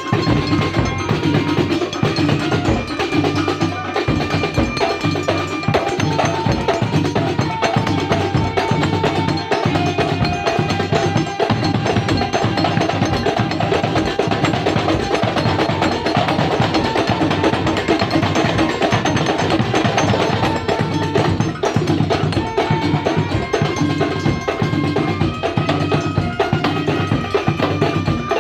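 A Kuntulan ensemble playing: a fast, dense rhythm of frame drums and hand drums, with held melodic notes on top that shift from time to time.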